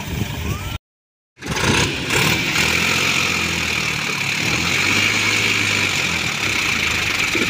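Diesel engines of a Sonalika tractor and a JCB backhoe loader running together under load as the backhoe pushes the loaded tractor and trolley, with a steady high whine over the engine note. A brief dropout about a second in.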